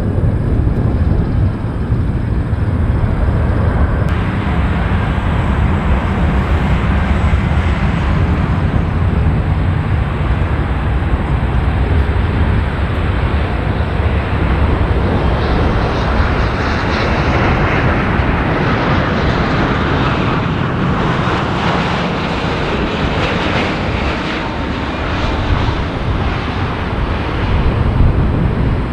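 Jet airliner's engines: a loud, continuous rumble, with a rising hiss that swells about two-thirds of the way through as the plane passes close.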